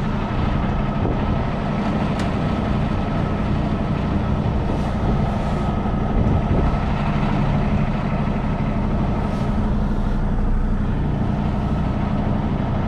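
Semi truck's diesel engine running steadily at low revs, heard from inside the cab while the truck creeps at low speed.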